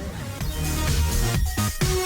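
Electronic dance music with a heavy, regular beat.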